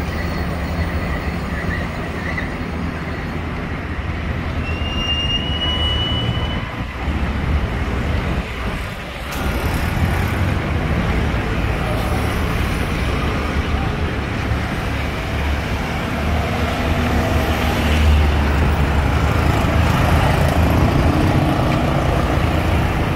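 Road traffic passing: the engines and tyres of cars, auto-rickshaws and motor scooters, a steady rumble that swells and eases as vehicles go by.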